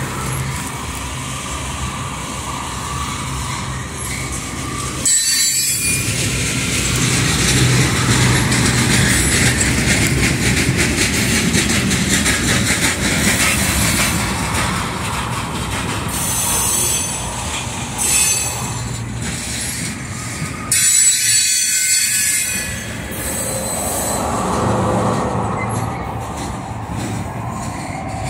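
Loaded flatcars of a Union Pacific freight train rolling past, steel wheels running on the rails, with high-pitched wheel squeal at times.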